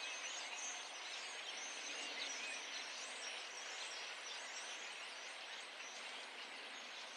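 A large flock of birds perched close together in trees, thousands of them chirping at once into a constant, dense chatter. The birds are unusually loud.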